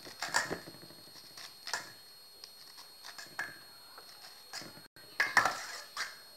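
A knife slicing kernels off a fresh corn cob into a stainless steel bowl: irregular scrapes and clicks, the loudest cluster about five seconds in.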